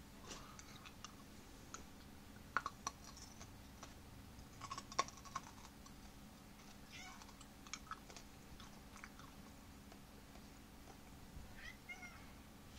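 Domestic cat giving a couple of faint, short meows, the clearest near the end, among scattered light clicks and taps.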